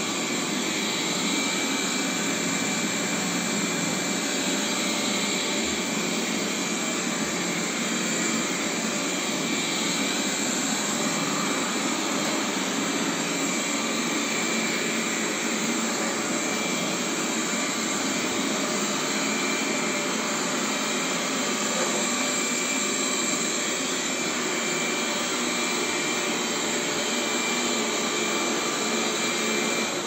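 Robot vacuum cleaner running, its suction fan making a steady, even whirring hiss with a faint high whine.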